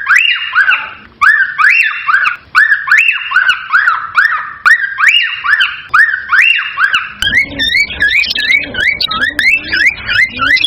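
A cockatiel whistling a repeated phrase of rising-and-falling notes, over and over in a steady rhythm. About seven seconds in, the pattern changes to a faster, wavering warble with a lower sound underneath.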